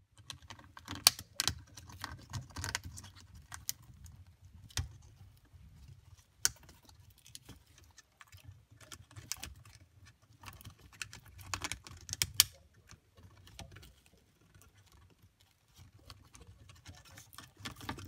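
White-bellied caique working its beak on a wooden toy with cinnamon sticks: irregular clicks and crunches of beak on wood, in short flurries with pauses between, the busiest about a second in and again about twelve seconds in.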